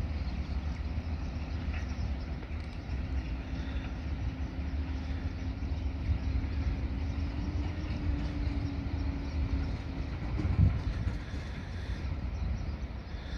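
Distant train on the line: a low, steady rumble with a faint hum that rises slightly about eight seconds in, and a single thump near the end.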